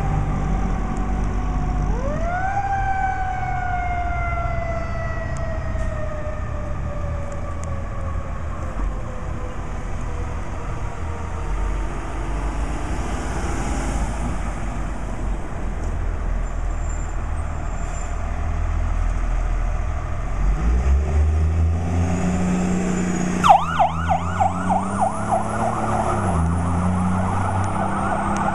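Fire truck responding to an emergency call with its siren on, over the steady rumble of its engine. About two seconds in, a siren tone rises sharply, then slowly falls away over several seconds. Near the end the engine grows louder and a siren starts a fast, pulsing yelp.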